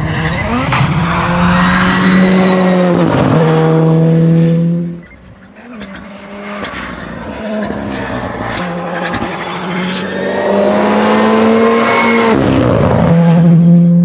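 Rally2 (R5) Ford Fiesta rally car's turbocharged four-cylinder engine at full throttle, revving hard and dropping in pitch at quick gear changes. The car passes twice, with a short lull between the passes. There are sharp crackles over the engine note.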